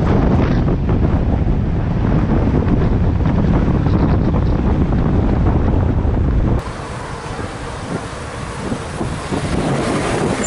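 Heavy wind rumble on the microphone of a camera on a motorcycle moving at speed, over road and traffic noise. About six and a half seconds in it cuts abruptly to quieter street-traffic noise as the motorcycle filters slowly between vehicles.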